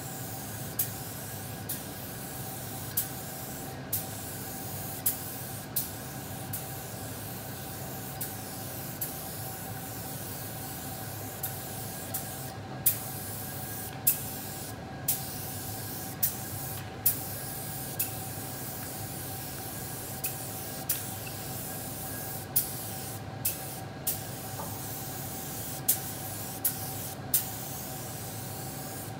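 DeVilbiss SRi Pro Lite gravity-feed spray gun hissing as it sprays a coat of clear leather lacquer. Short sharp clicks come about once a second, and the spray breaks off briefly a few times between passes.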